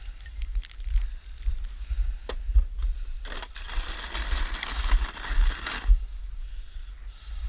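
Snow shovel working snow: a few crunching knocks, then one long scrape of about three seconds near the middle, over a steady low rumble of wind on the microphone.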